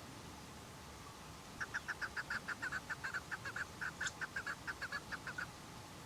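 Chukar partridge calling: a rapid run of short clucking 'chuk' notes, about six a second, that starts about one and a half seconds in and stops shortly before the end.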